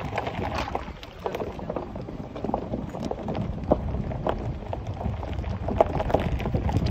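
Horse's hooves clopping irregularly on a stony dirt track, as sharp knocks over a steady low rumble.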